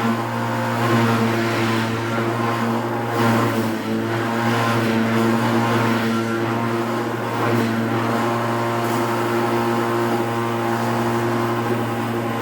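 Clog-hollowing machine cutting out the inside of a wooden clog. Its electric motor gives a steady hum, and the noise of the cutter biting into the wood rises and falls over and over.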